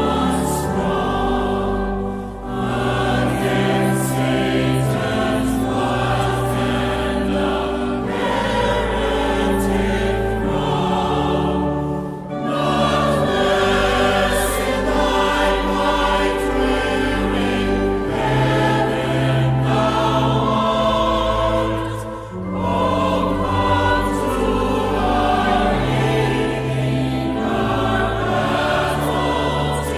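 A choir singing a hymn in long sustained phrases over a deep low accompaniment, breathing briefly between phrases about every ten seconds.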